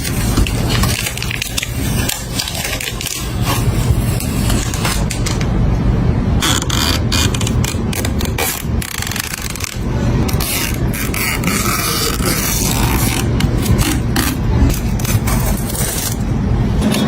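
Scraping and many short clicks of hands handling computer parts, over a steady low rumble.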